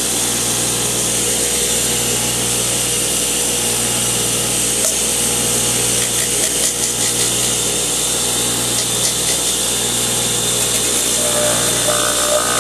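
Electric bench grinder running steadily, its wheel grinding the cut end of a rubber radiator hose smooth.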